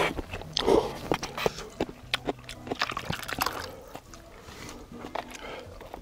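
A person eating instant cup noodles (yukgaejang sabalmyeon), slurping and chewing, with a string of short wet smacks and clicks.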